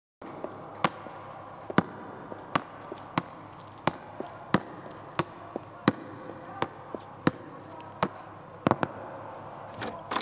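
Sharp taps on a hard surface at a steady walking pace, about one every 0.7 seconds, over a steady background hum.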